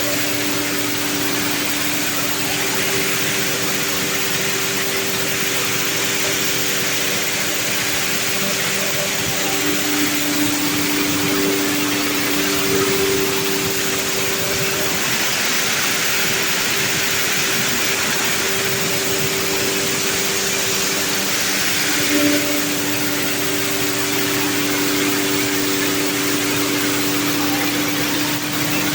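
Corn sheller machine running steadily: an even engine hum with a dense hiss over it, the hum wavering slightly now and then.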